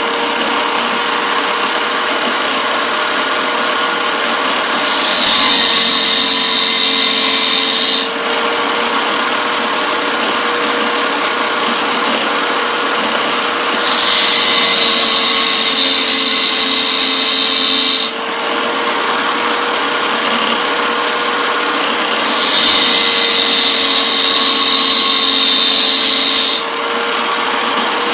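Small tile saw's diamond wheel spinning with a steady motor hum, grinding the carbide teeth of a table saw blade to sharpen them. Three louder, higher-pitched grinding passes of about four seconds each, with the motor running unloaded in between.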